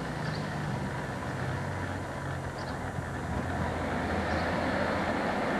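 Diesel train engine running with a steady low drone, growing louder over the last couple of seconds as the train draws nearer.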